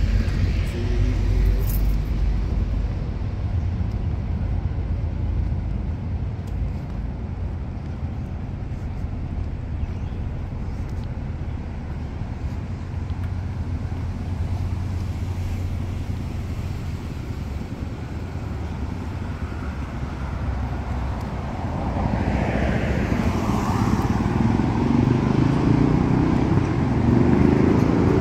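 Steady low rumble of distant road traffic. Near the end a louder engine sound builds up as something approaches.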